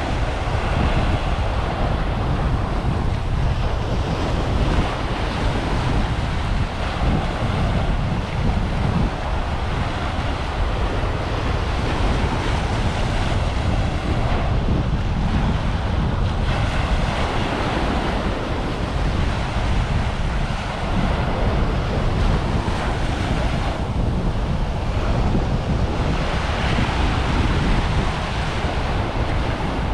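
Small waves breaking and washing up a sandy shore, under wind noise buffeting the microphone with a steady low rumble.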